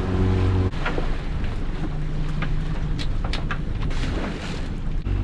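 Small fishing boat's engine running, with wind rumbling on the microphone and a few sharp knocks and clatters in the middle.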